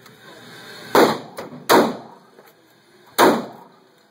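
Glock 23 pistol in .40 S&W fired three times: about a second in, again under a second later, and once more about a second and a half after that. Each shot is a sharp crack with a short echoing tail off the walls of an indoor range.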